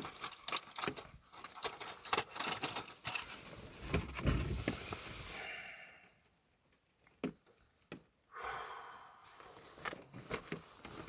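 Handling noise of clothing and gear in a car: rustling with many small clicks and a light jangle. Near the middle the sound drops almost to nothing for about two seconds, with two faint clicks, before the rustling resumes.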